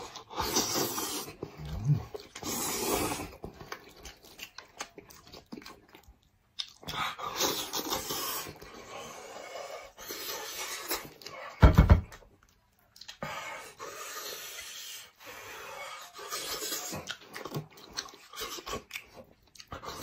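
Close-miked wet eating sounds: chewing, sucking and slurping braised head meat eaten by hand in a thick spicy sauce, with heavy breathing through the nose and mouth. A single loud low thump comes a little over halfway through.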